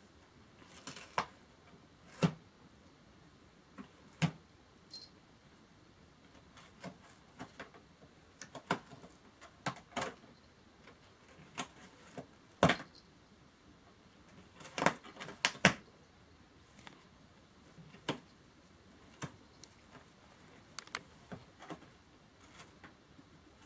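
A cat clawing and biting at a cardboard LEGO box. It makes irregular sharp scratches and rips, some much louder than others, with short pauses between them.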